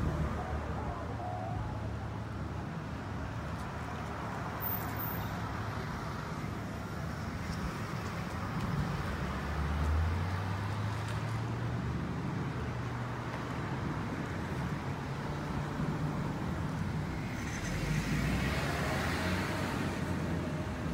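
Road traffic: a steady low engine hum, with one vehicle's engine note rising about ten seconds in and a louder car going past near the end.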